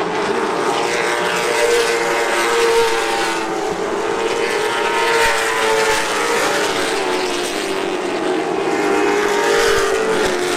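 Late model stock car V8 engines running at racing speed around a short oval, a steady multi-toned drone that rises and falls slightly as the cars lap.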